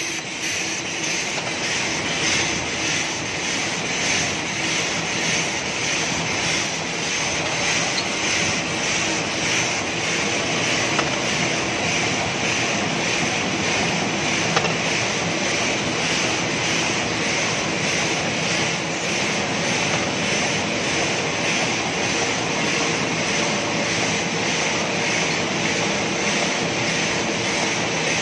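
Automatic napkin and plastic cutlery packaging machine running: a steady mechanical whirring and clatter of its motors, rollers and feed mechanisms.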